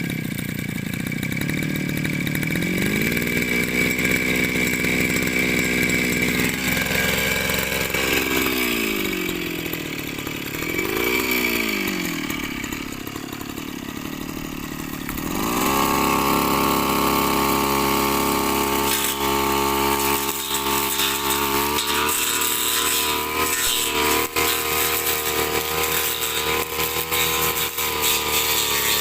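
Small petrol engine of a power trimmer starting up and running, its pitch rising and falling as the throttle is worked. About halfway through it revs up and holds a higher, steady speed. In the last third, uneven crackling snaps over the engine, typical of the blade cutting through corn stalks.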